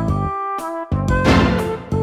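Playful background music of short, bouncy repeated notes. About a second in, a burst of noise rises over it and fades within a second.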